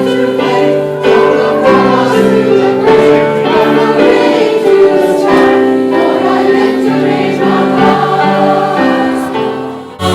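Choir singing a hymn, with sustained chords that change every second or so and a brief dip near the end.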